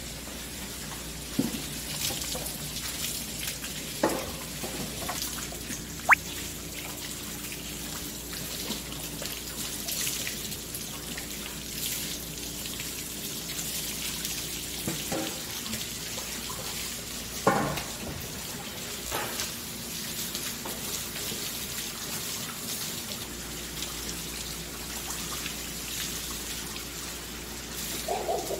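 Running water, as from a tap at a fish-cleaning sink, with a handful of short knocks and one sharp clink about six seconds in.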